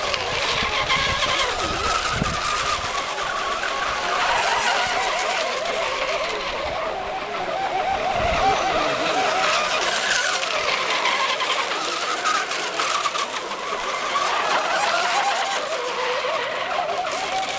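Several radio-controlled racing hydroplanes running flat out, a high wavering whine that rises and falls as the boats race past, over a steady hiss of spray.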